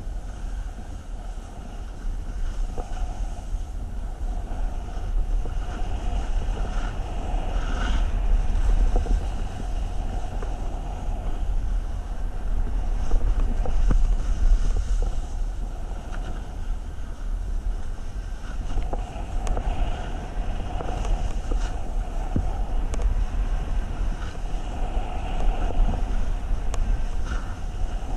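Wind buffeting the camera's microphone during a downhill ski run, a steady low rumble, with the hiss and scrape of skis on packed snow swelling and easing through the turns.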